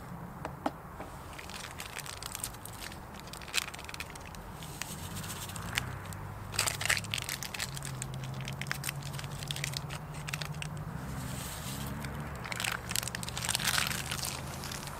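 Water heating in a stainless steel camping kettle over an alcohol stove as it nears the boil: a low steady hum with irregular crackling and ticking.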